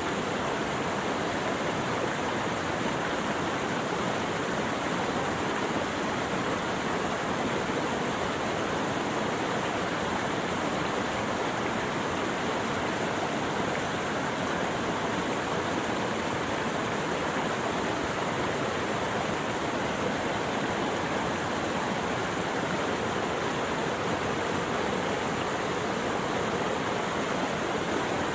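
Flowing water rushing steadily and evenly, with no distinct events or other sounds standing out.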